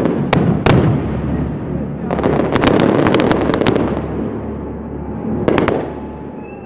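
Fireworks going off: single sharp bangs, then a dense crackling run of many quick reports lasting about a second and a half, then two more bangs near the end.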